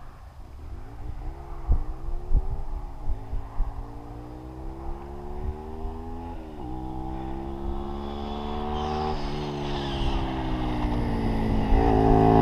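Motorcycle engine accelerating hard and changing up through the gears about four times, each gear a rising note that drops at the shift, getting steadily louder as it approaches.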